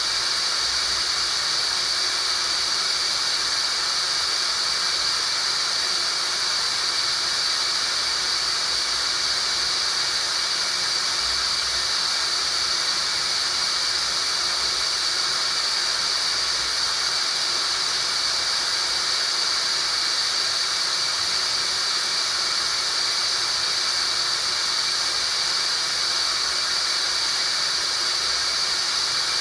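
Tinnitus sound-therapy noise: a steady hiss with a bright, high-pitched band on top.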